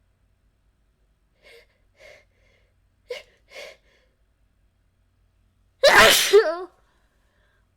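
A girl sneezing, brought on by chhinkni sneezing herb. There are four short catching breaths, then one loud sneeze a little under six seconds in.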